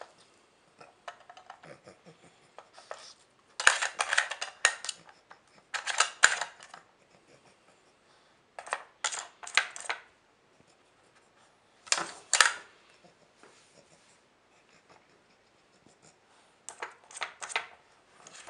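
Plastic pieces of a Trixie dog strategy puzzle clattering and rattling in five short bursts a few seconds apart as a dog noses and pushes at its cones, lids and sliders.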